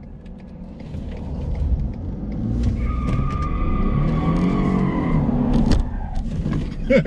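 Ford F-150's 2.7 EcoBoost V6 running as the pickup is backed up onto ramps. The engine revs up and eases back down around the middle, with a high steady whine for a few seconds and a few light clicks.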